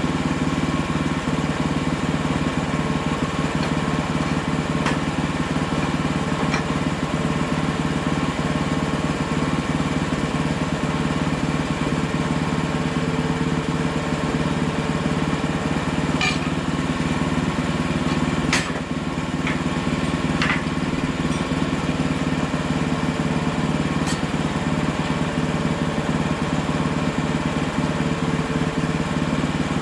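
Engine of a Hudson Hunter sawmill running steadily, with a few sharp knocks in the middle, the loudest a little past halfway.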